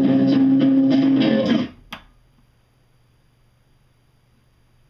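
Guitar music playing from a Newcomb EDT-30M portable record player's built-in speaker. The music falls away quickly about a second and a half in. A single click follows, then only a faint low hum from the player.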